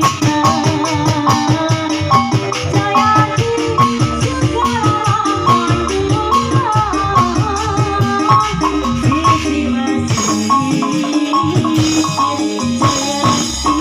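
Live music: a quick, busy percussion pattern with a wavering melody line over it.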